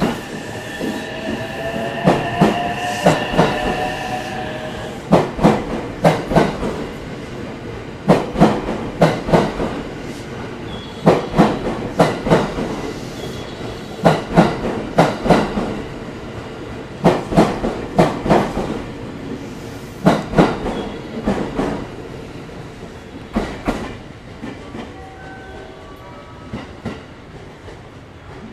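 An out-of-service electric train rolling slowly through the station, its wheels clacking over rail joints in groups roughly every three seconds as each car passes, fading near the end. A whine, rising slightly in pitch, sounds over the first four seconds.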